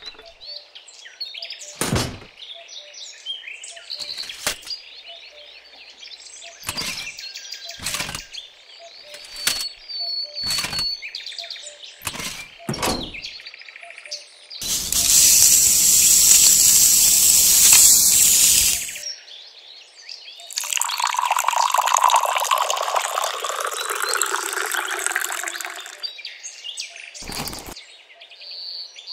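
Birds chirping in the background, with a string of sharp clicks and taps from small hobby parts being handled, then two stretches of loud rushing noise a few seconds long each, about halfway and again past two-thirds of the way in.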